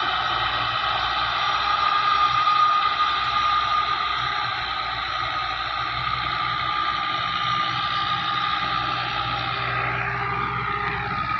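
Tractor engine running steadily under load while it drives a tractor-mounted rotavator tilling the soil, with a steady high whine over the engine note.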